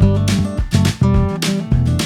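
Background music led by a strummed acoustic guitar, with a bass line under it.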